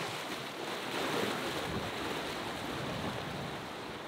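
Water rushing and splashing along the hull of a sailing yacht under way, with wind on the microphone; the rush swells about a second in.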